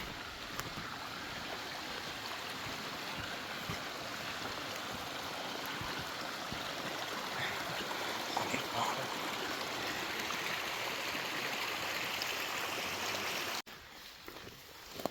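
Stream water running in a steady rush, cutting off abruptly near the end.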